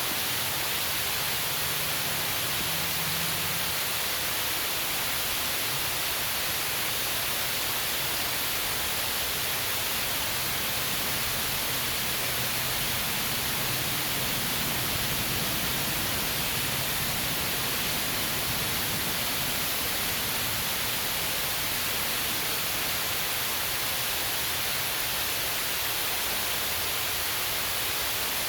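Steady hiss of heavy rain with no breaks or separate events.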